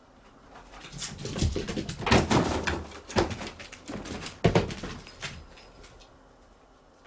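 A cat scrambling and playing right beside the camera on a woven floor mat: a quick run of thumps, scratches and rustles, loudest in the middle, that dies away about five seconds in.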